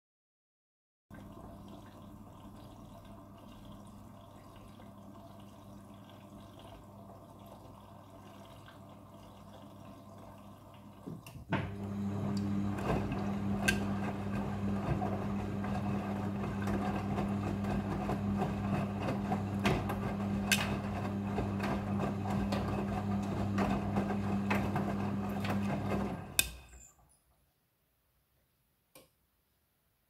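Midea front-loading washing machine in its first rinse: water running and splashing in the drum over a steady hum. About a third of the way in it turns much louder as the drum turns the wet clothes, with scattered clicks. It stops a few seconds before the end.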